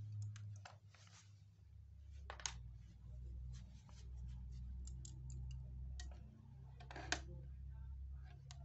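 Scattered light clicks and taps from handling a handheld digital multimeter and its test probes, with two sharper clicks about two and a half and seven seconds in, over a low steady hum.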